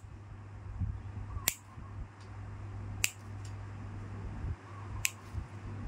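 Stainless steel nail nippers snipping through the edge of a very hard, ingrown big toenail: sharp clicks about every one and a half to two seconds, over a steady low hum.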